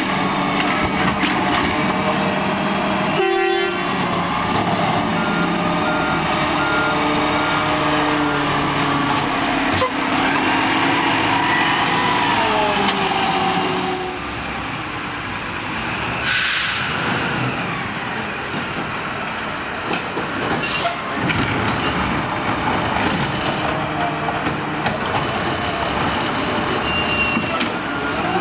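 Garbage truck at work: diesel engine running with hydraulic whines that rise and fall, and a short hiss about halfway through.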